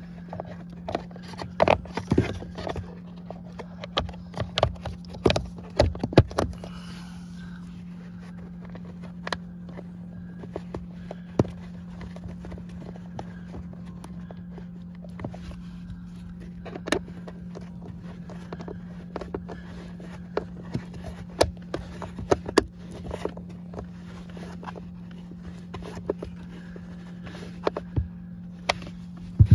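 Plastic clicks and knocks of a Tesla Model 3's cabin air filter access panel being handled and fitted back in place, closely packed in the first six seconds or so. After that come sparser taps and scrapes as a screwdriver drives the panel's screws, all over a steady low hum.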